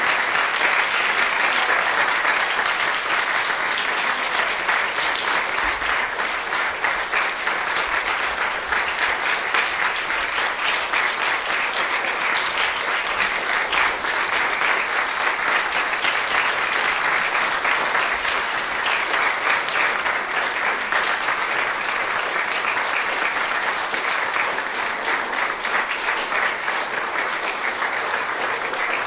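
Audience applauding steadily, a dense even clapping.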